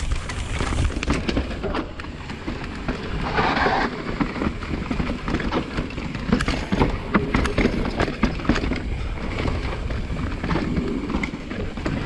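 Downhill mountain bike riding a rough trail: a constant low rumble of tyres on dirt and rocks and of wind on the GoPro microphone, with many small knocks and rattles from the bike. A short hiss comes about three and a half seconds in.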